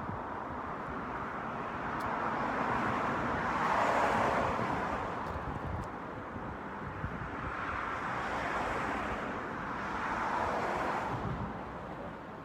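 Road traffic: cars passing on a city street, each one swelling in as it comes by and fading away, with the loudest pass about four seconds in and more around the last third.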